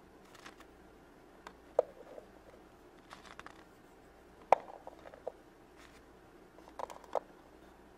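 Small plastic Shopkins figures being set down on the plastic shelves of a toy fridge: scattered light clicks and taps, the sharpest about two seconds in and about halfway through, with soft handling rustle between.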